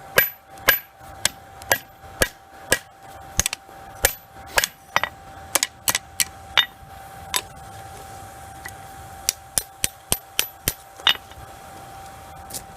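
Cross peen hammer striking a hot railroad spike, drawing out a knife bevel: sharp ringing blows about two a second, a short pause in the middle, a few more strikes, then one last blow near the end. A faint steady hum runs underneath.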